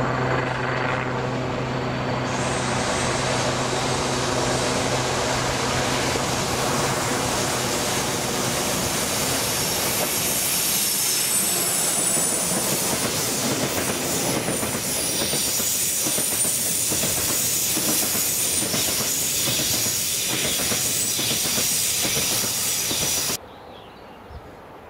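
JR East 189 series electric multiple unit running along the platform. It opens with a steady low hum, then comes broad rail noise with a high wheel squeal near the middle and a run of rhythmic wheel clacks over the rail joints. The sound cuts off sharply about a second and a half before the end, leaving quiet outdoor air.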